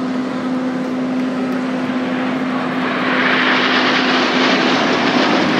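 Formation of nine BAE Hawk jet trainers flying over, the rush of their jet engines swelling and growing louder from about halfway through.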